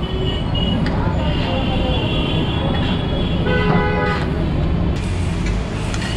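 Busy street traffic rumbling steadily, with vehicle horns tooting: one longer held note about a second in and a shorter one just past the middle.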